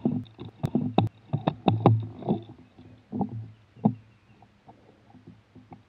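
Irregular knocks and thumps from an airsoft rifle being handled, heard through its rail-mounted camera. They come thick and fast for the first two seconds or so, then as a few separate knocks.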